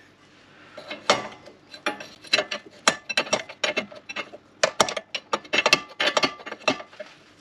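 Socket ratchet clicking in short runs of strokes as the lower ball joint nut is done up, stopping near the end.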